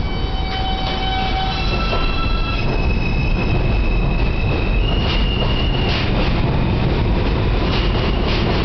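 R160 subway train accelerating out of the station: its propulsion gives off a cluster of high steady tones that step up in pitch a couple of times, over a heavy rumble of wheels on the rails. A few sharp clicks come near the end.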